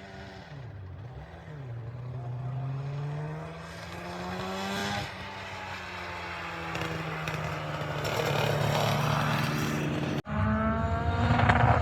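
Classic racing vehicle's engine accelerating up the hill climb, revving up through the gears with its pitch rising and then dropping at each upshift, growing louder as it approaches. About ten seconds in the sound breaks off for an instant and a louder, rougher-running engine takes over.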